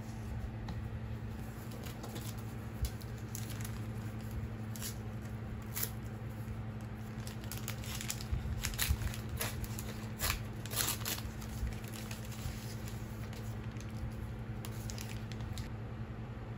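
Thin plastic screen-protector film and its sticker tabs crinkling and tearing as they are handled and peeled. Sharp crackles come in a cluster between about five and eleven seconds in, over a steady low hum.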